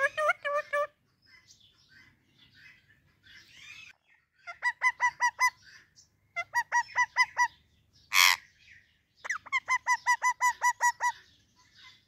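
Indian ringneck parakeets calling in bouts of rapid, evenly spaced short chirps, with one loud harsh squawk about eight seconds in.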